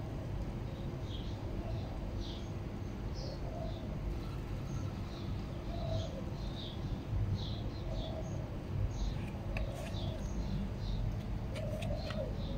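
Small birds chirping in short, scattered calls over low cooing from a dove, with a steady low background rumble. A few sharp clicks come near the end.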